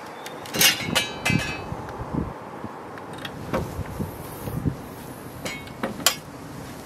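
Metal clinks and knocks as the released bonnet of a Vauxhall Astra H is lifted and propped open on its stay: a quick run of ringing clinks in the first second and a half, softer knocks in the middle, and a sharp click about six seconds in.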